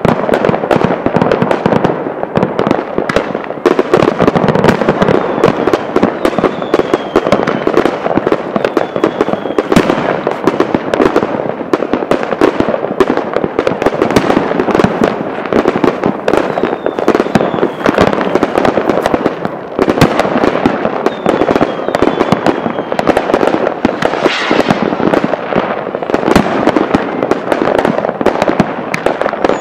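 Many consumer fireworks, rockets and aerial shells, going off at once: a dense, unbroken barrage of bangs and crackling, many a second. Now and then a short falling whistle.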